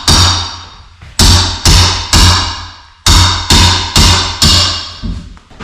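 Background music with heavy, evenly spaced drum hits over a steady bass tone.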